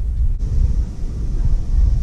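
Low, fluctuating rumble of wind buffeting the phone's microphone.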